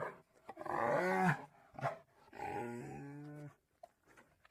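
Cinnamon bear (a brown-coated American black bear) vocalizing: a pitched call of about a second, a short call, then a longer call over a low steady tone that stops about three and a half seconds in.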